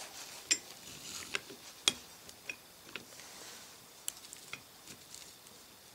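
Gears and parts of a 1950s Eaton limited-slip differential clicking and clinking as they are worked by hand inside the differential case: about ten small, sharp metal clicks at irregular intervals, the loudest about two seconds in.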